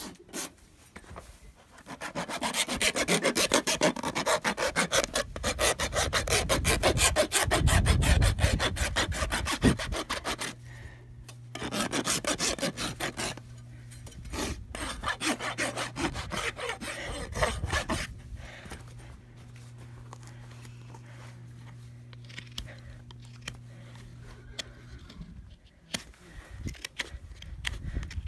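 Hoof rasp filing a horse's hoof during a trim, in quick repeated strokes. The strokes come in several bouts with short breaks, then stop about two thirds of the way in, leaving a faint steady low hum.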